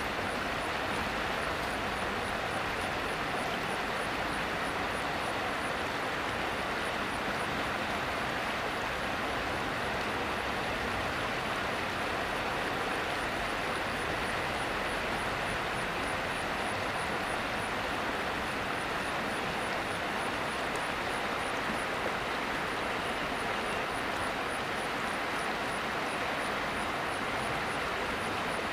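Steady rush of flowing river water, even and unbroken, with a faint high-pitched chirp repeating at a steady pace.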